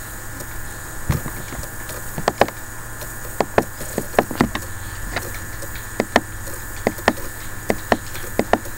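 Computer mouse clicking: sharp, irregular clicks about two a second over a steady background hum.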